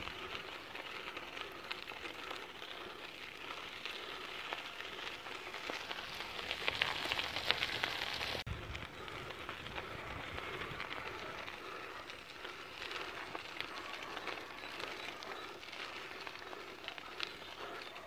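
Outdoor ambience: a steady crackling hiss that grows denser and louder about seven seconds in, then changes abruptly a little after eight seconds.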